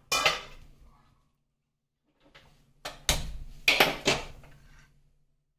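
Cookware knocking and clattering on a gas hob as a pan and plastic ladle are handled: one sharp knock at the start, then a quick cluster of four or five knocks about three to four seconds in.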